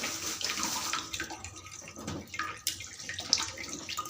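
Shallots and garlic being washed by hand in water: uneven splashing and sloshing with small irregular knocks of the bulbs.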